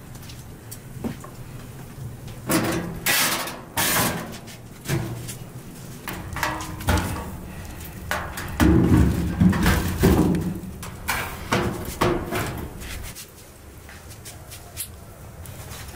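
Irregular knocks, bumps and scraping of objects being handled, busiest and loudest in a cluster about nine to ten seconds in.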